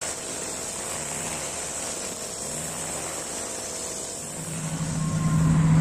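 Honda four-stroke brush cutter running steadily while its nylon string line cuts grass. A low steady hum grows louder over the last second or so.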